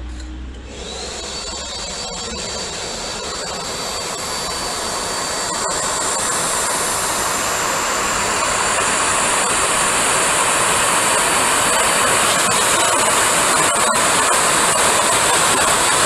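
Vacuum cleaner switching on about half a second in and running with a steady rush and a high whine, growing steadily louder as the suction hose is brought near.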